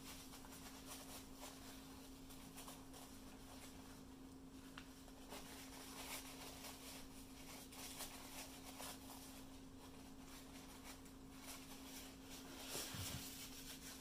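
Faint rustling and rubbing of a cloth rag wiping small Glock pistol parts clean, with light scratches and clicks of the parts being handled, over a steady low hum.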